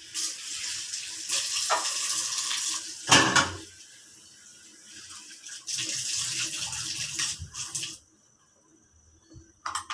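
Rushing water noise in two stretches that start and stop abruptly, broken by a loud knock about three seconds in.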